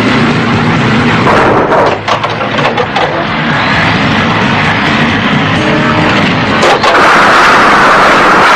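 Heavy truck crash: an engine running hard, then a cluster of crashing impacts about a second and a half in, and more bangs near seven seconds. After that a steady loud rush of noise takes over.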